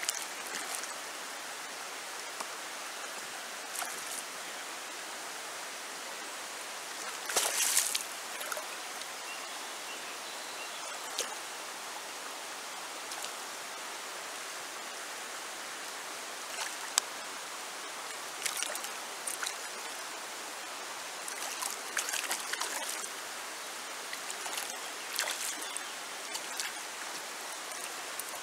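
Shallow river water running over a cobble bed, a steady rushing with a few brief louder spatters; the loudest comes about seven and a half seconds in.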